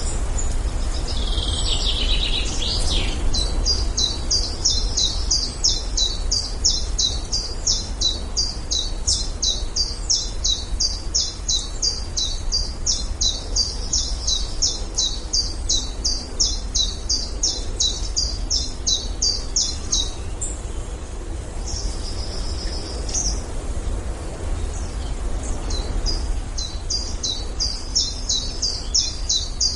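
Forest ambience: a bird sings a long, fast, evenly repeated series of high notes, pauses about two-thirds of the way through, gives a brief different call, then starts the series again. Other birds call briefly at the start, over a steady low wind rumble.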